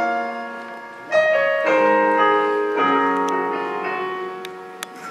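Live orchestral music opening a song: a slow run of chords, each starting sharply and fading away, changing about four times. There is one short sharp click near the end.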